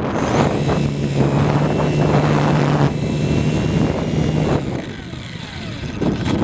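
RC plane's motor and propeller running with a steady low hum, heard over wind rushing across the onboard camera's microphone. The hum stops about three-quarters of the way through and the sound drops to wind alone.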